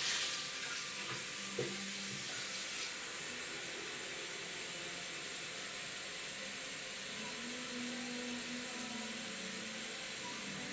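Kitchen tap running steadily into a sink, with a short clatter about one and a half seconds in.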